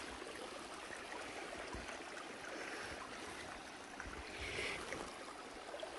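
Footsteps and brush rustling in snow on a steep slope, over a steady even hiss. A sharp click at the very start and a few soft thuds of steps about four to five seconds in.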